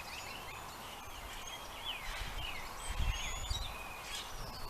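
Songbirds chirping and calling, many short chirps and whistles, with low rumbles about halfway through.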